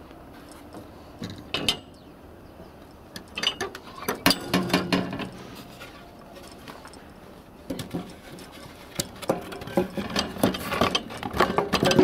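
Clicking and rattling of a metal gate bolt and latch being worked, in several bursts of knocks and clicks.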